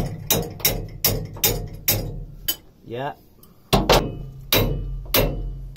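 Repeated hammer taps driving a narrowboat's propeller-shaft coupling back onto the shaft: sharp metallic knocks about three a second, a short break about three seconds in, then heavier blows.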